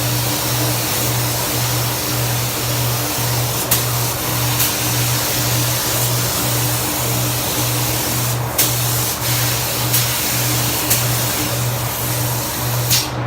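Background music with a steady bass beat just under twice a second, over a dense steady hiss, with a few brief clicks.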